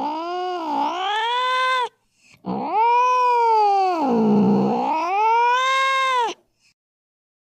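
Cat caterwauling in long, drawn-out yowls: one call ends about two seconds in, then a second, longer one rises, sags low in the middle and rises again before breaking off, typical of an angry, threatening cat.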